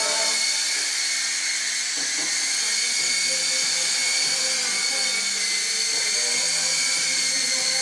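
Small radio-controlled helicopter's electric motors and rotors whining steadily in flight.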